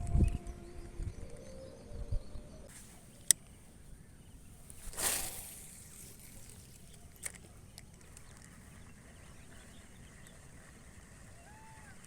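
Quiet outdoor background with a few sharp clicks and a brief rushing, splash-like noise about five seconds in. Arched bird calls near the end.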